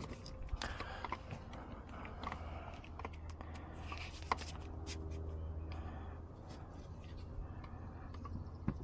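Scattered light clicks and taps of a screwdriver and plastic car-door parts being handled as a screw is driven back into plastic, over a low steady hum.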